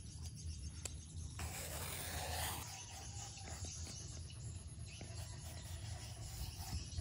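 Vegetable peeler scraping strips of skin off a long purple eggplant, with one long stroke about a second and a half in and quieter strokes after it.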